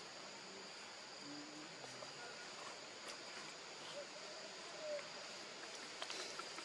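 Steady chorus of insects, with a held high-pitched drone, and a faint outdoor background. A few brief faint chirps come through, the clearest about five seconds in.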